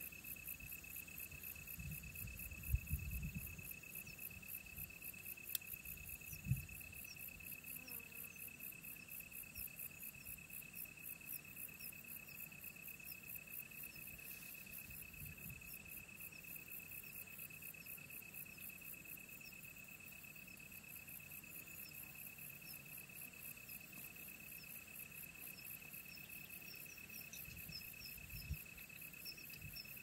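Insects trilling faintly: one steady high-pitched trill with a faster, regular pulsing above it. A few dull low thumps come near the start and once near the end.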